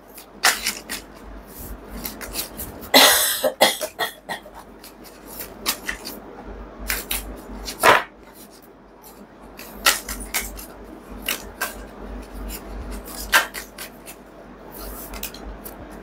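Deck of tarot cards being shuffled by hand: irregular flicks and slaps of cards against each other, with a longer rustling burst about three seconds in and a sharper slap near eight seconds.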